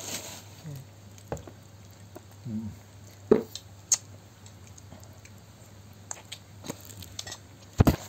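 Scattered light knocks and clicks of things being handled while eating durian, with a sharp knock about three seconds in and a loud double knock just before the end. A short murmur of a voice comes near the start.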